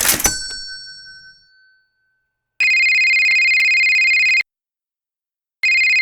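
A sharp hit with a bell-like ring that fades over about two seconds, then a telephone ringing with a rapid trilling ring: one ring of about two seconds, a short pause, and a second ring starting near the end.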